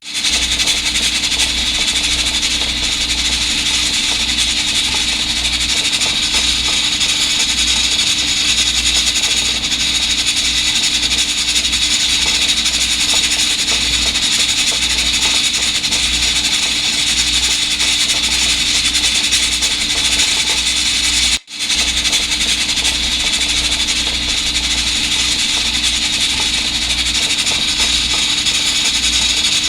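Electric pressure rice cooker venting steam in a loud, steady hiss over a low hum and rumble, as in its steam-cleaning cycle. The sound breaks off for a split second about two-thirds of the way through, then carries on.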